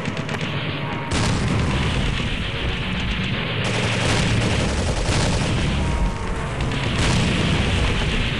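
Paintball markers firing in rapid volleys across the field, over heavy close noise on the helmet camera; the sound gets louder about a second in.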